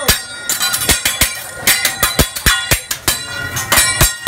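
Teppanyaki chef's steel spatula clanging against the steel griddle and utensils, sharp metallic strikes about three to four a second in an uneven rhythm, each ringing briefly.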